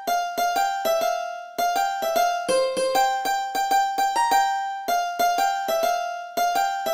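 Sitar playing a melody of quick plucked notes, each ringing on with bright overtones, with a brief break in the phrase about a second and a half in.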